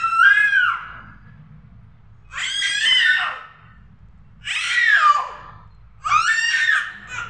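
A baby squealing in high-pitched calls, four of them about two seconds apart, each about a second long and dropping in pitch at its end.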